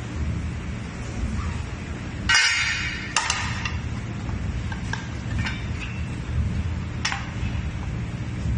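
Metal clanking as a laser-welded stainless steel piece is struck, a rough test of the weld's strength. There is one loud ringing clank about two seconds in, then several lighter clinks, over a steady low rumble.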